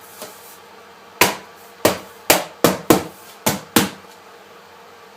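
Seven sharp knocks over about two and a half seconds, each with a short ring, as the aluminium bottom cover of a unibody MacBook Pro is put back on.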